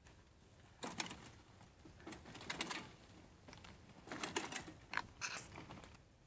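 Mountain bikes rolling over dirt and gravel: faint, irregular clicking and crunching in several short spurts.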